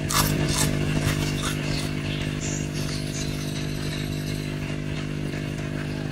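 A few sharp crunches as a fried rice cracker (kerupuk) is bitten and chewed in the first second or so, over a steady low machine hum.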